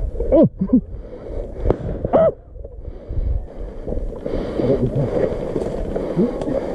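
A man's short wordless pained groans and gasps, three in the first couple of seconds, from an airsoft player just hit in the face by BBs. After that comes a steady rustling noise.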